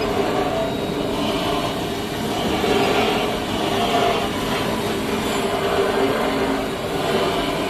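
CNC double-head aluminium cutting saw running: a steady mechanical drone with a few held tones, swelling slightly now and then.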